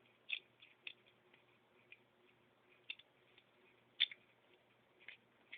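A few faint, scattered clicks as pliers grip a small metal pin in a plastic airsoft pistol's trigger assembly, with the clearest click about four seconds in.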